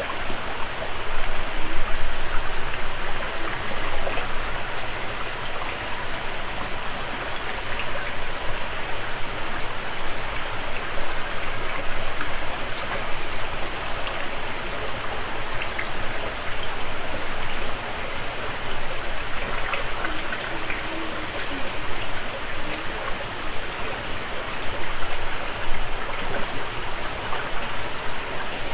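Small rocky creek running and trickling between boulders into a pool: a steady rush of water.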